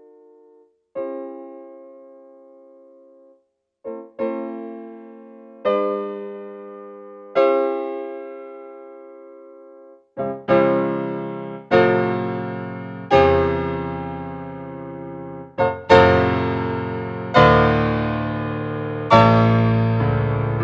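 Solo piano playing slow, sustained chords, one struck about every one and a half seconds, each left to ring and fade. The chords start quiet and high, then grow louder with a deep bass from about halfway through.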